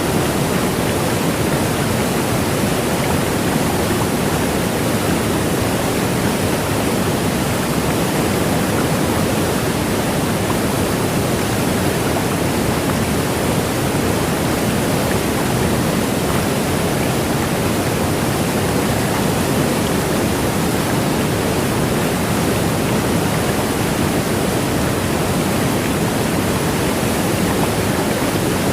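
Changi Airport's Rain Vortex indoor waterfall pouring down steadily: a loud, even rush of falling water that does not change.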